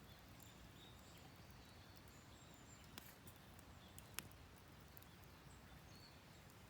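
Near silence with a low background hiss, broken by two faint sharp clicks about a second apart.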